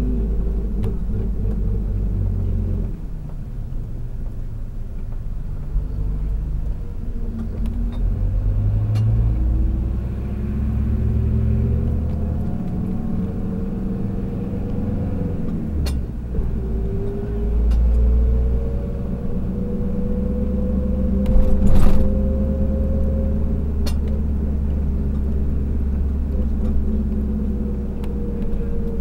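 Car engine and road rumble heard from inside a moving vehicle, the engine's pitch rising and falling as it speeds up and slows. About three-quarters of the way through there is a brief, louder burst of noise.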